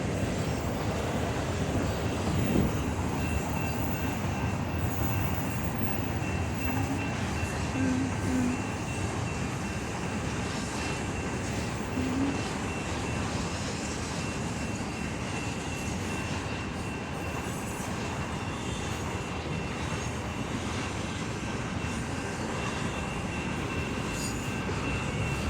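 Freight train cars rolling past in a steady rumble, with a thin, steady, high-pitched wheel squeal running over it from a few seconds in.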